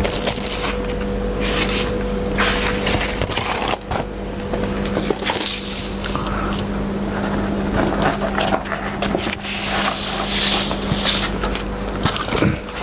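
Cardboard takeaway boxes, foil and paper plates being handled and set down on a wooden table, in irregular rustles and knocks, over a steady hum.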